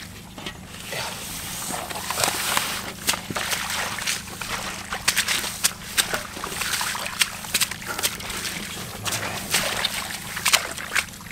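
Shallow, grassy floodwater sloshing and splashing irregularly, with many short splashes and rustles, as someone wades and gropes through it by hand for fish.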